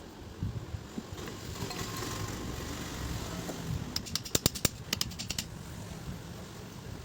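A quick run of sharp clicks and taps, about eight in a second and a half, over a low steady background hum: small metal parts of a mixer grinder motor being handled during reassembly after a bush change.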